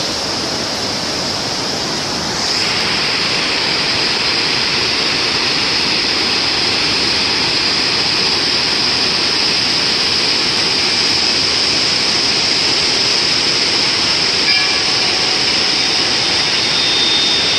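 The Parvati River's fast-flowing water rushing: a loud, steady noise that swells a little about two seconds in.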